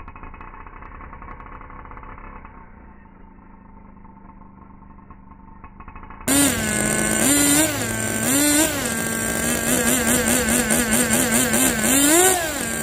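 Kyosho GP nitro glow engine of an RC touring car running at a quiet, muffled idle, then about six seconds in much louder as the throttle is blipped again and again, the pitch rising and falling with each blip. The engine is being broken in.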